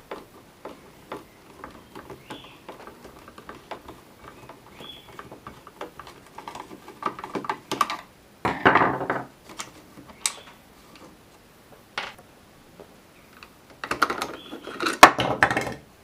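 A screwdriver turning out a small screw from the coffee machine's black plastic housing, with light clicks and scraping. Twice, about halfway through and again near the end, louder plastic clattering and scraping as the part is worked loose.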